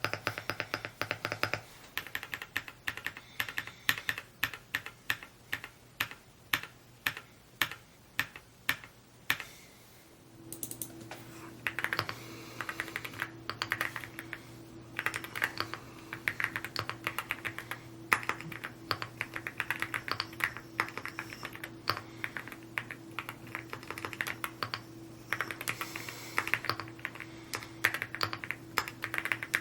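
Typing on a Rainy75 mechanical keyboard: a fast, steady run of keystrokes. About ten seconds in the typing breaks off briefly, then goes on over a steady low hum.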